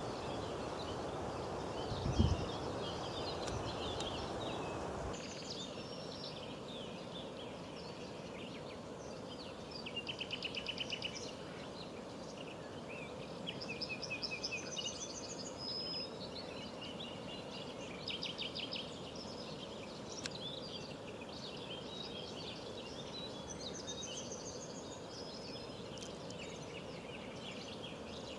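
Small birds calling and singing over a steady outdoor hiss, with several quick repeated trills in the middle and later part. A brief low thump about two seconds in, and the hiss drops about five seconds in.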